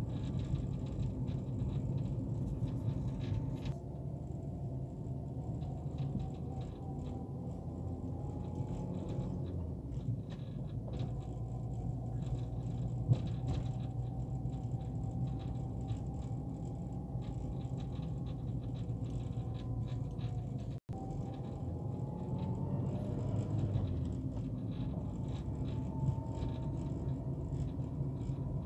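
Car engine and road noise heard from inside the cabin while driving, the engine's pitch slowly rising and falling as the car speeds up and slows.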